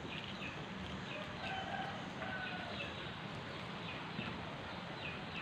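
Birds chirping in short, repeated falling calls, with a couple of longer, lower held calls about one and a half to two and a half seconds in, over a steady outdoor hiss.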